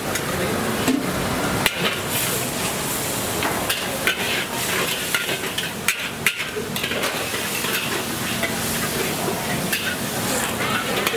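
Food sizzling in a hot pan while a metal utensil repeatedly clanks and scrapes against it, irregular sharp knocks over a steady hiss.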